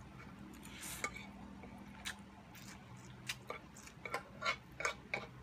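Close-up eating sounds of pancit canton noodles being slurped and chewed, with a soft slurp about a second in and a run of short wet mouth smacks in the second half.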